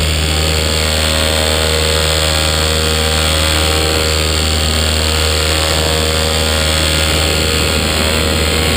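120cc paramotor engine running steadily at constant throttle in flight, a continuous drone with a steady low hum.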